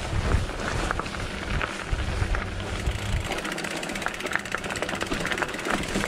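Plus-tyre mountain bike rolling along a dirt trail: wind buffeting the microphone and a low tyre rumble, giving way about halfway through to a fast, even clicking.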